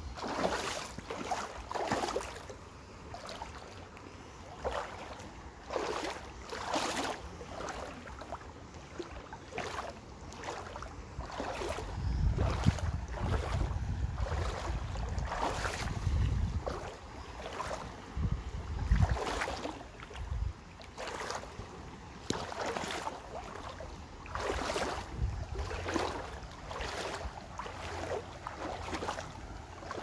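Footsteps at an even walking pace, about one step a second. Wind buffets the microphone with a low rumble for several seconds near the middle.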